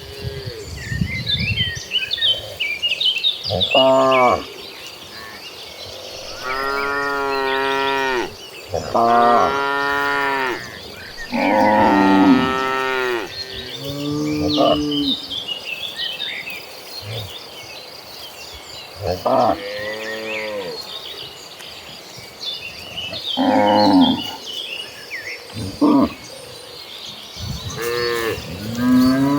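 Herd of cattle mooing, cow after cow, about eight calls, some short and several long drawn-out ones, with a steady high buzz and faint chirps between them.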